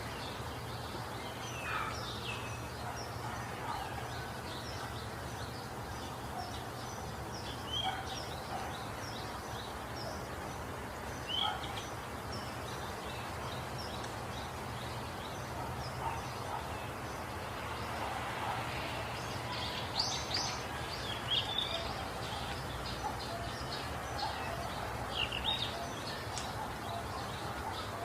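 Birds chirping: many short, high calls and quick downward sweeps scattered throughout, busier in the second half, over a steady background hiss and low hum.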